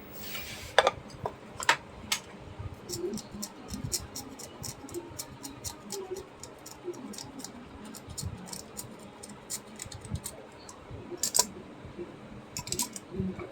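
Small tools clicking and scraping on a TV circuit board while a jumper wire is fitted across a cracked trace: many short, irregular ticks and clicks, thickest in the middle, with a few louder clicks near the end.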